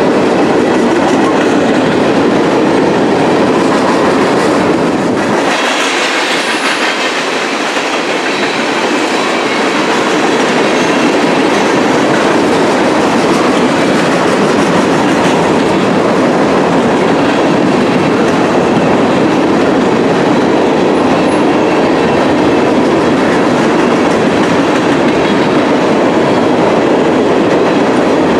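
Freight train of tank cars rolling past close by: loud, steady rolling noise of steel wheels on the rails, with the low end thinning for a few seconds about five seconds in.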